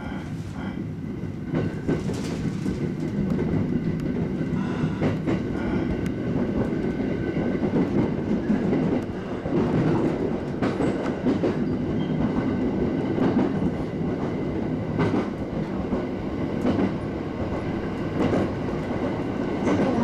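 Inside a JR East 701 series electric train pulling out of a station and picking up speed: the running noise grows over the first several seconds, with wheels clicking over the rail joints.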